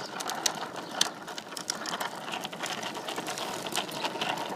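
Hard plastic wheels of a child's big-wheel tricycle rolling over asphalt: a continuous rattling grind full of rapid, irregular clicks.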